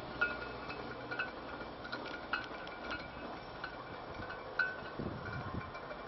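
Light chime-like tinkling: short ringing notes at a couple of fixed pitches, coming irregularly every fraction of a second over a steady background hiss, with some low buffeting of wind on the microphone about five seconds in.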